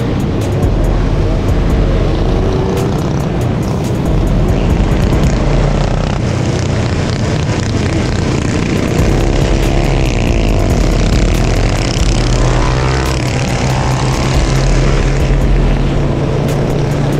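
Engines of a pack of dirt bikes and sport ATVs riding together, a steady drone with engines revving up and down around the middle.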